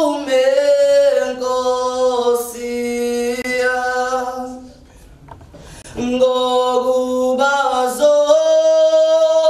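A man singing a cappella, holding long, steady notes. He breaks off for a breath about four and a half seconds in and comes back in at about six seconds.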